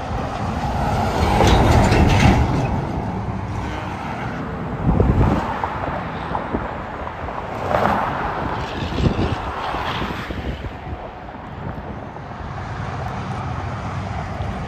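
Interstate highway traffic, semi-trucks and cars passing at speed, tyre and engine noise swelling and fading with each pass. The loudest pass comes about two seconds in, with shorter ones around five and eight to ten seconds in.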